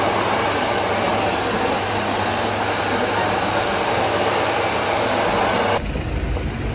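Hand-held hair dryer blowing steadily, cutting off abruptly about a second before the end, where a low rumble takes over.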